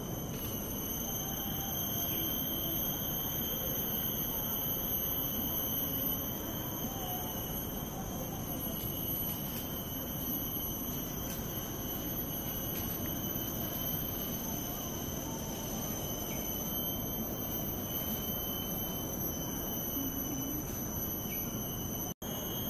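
Forest insects shrilling, a steady high-pitched drone at several pitches at once that never lets up. There is a brief dropout near the end.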